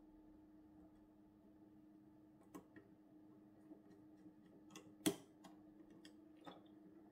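Faint, scattered small plastic clicks and taps as a small speaker is pressed and worked into its mount on a model locomotive's plastic chassis, the sharpest click about five seconds in. A faint low hum runs underneath.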